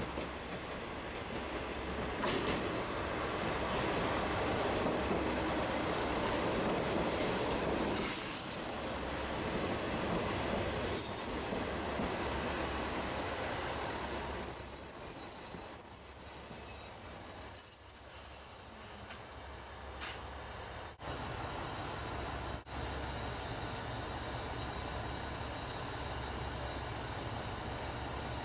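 Diesel train running on the rails, with a steady high wheel squeal for several seconds in the middle. About two-thirds of the way through it drops to a quieter, steadier sound.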